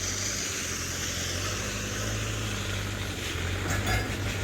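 Heavy diesel machinery running steadily with a low hum, with a few light clicks near the end.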